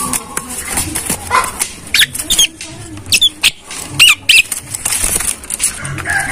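Javan myna calling: a run of sharp clicks and short, high whistled notes that bend up and down.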